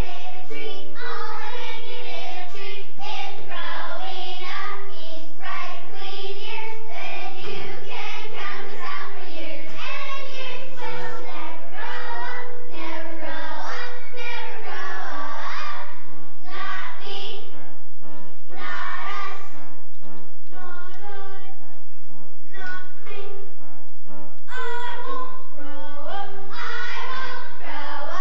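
A group of children singing a song together, with sustained accompanying notes underneath.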